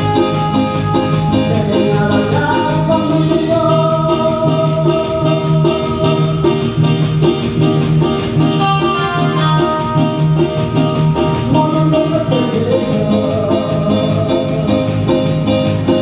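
A live tropical Latin dance band plays an instrumental passage: bass, drums and a scraped güiro keep a steady dance beat under a long held melody line, which swoops upward about twelve seconds in.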